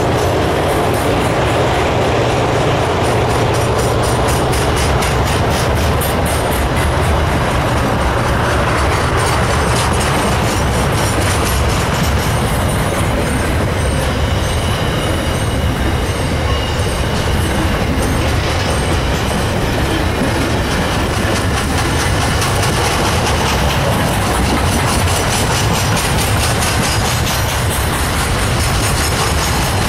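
Container wagons of a long freight train rolling past, wheels clacking rhythmically over the rail joints over a steady rumble, with a faint high wheel squeal midway.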